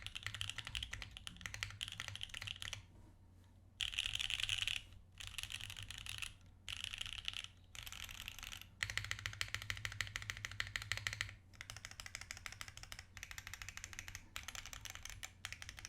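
Mechanical keyboard with a POM plate in a top-mount case being typed on: fast, continuous runs of clacking keystrokes broken by short pauses, the longest about three seconds in.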